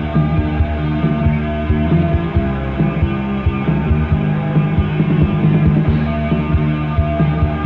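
Goth rock song in an instrumental passage, with a steady drum beat over sustained low notes and no vocals.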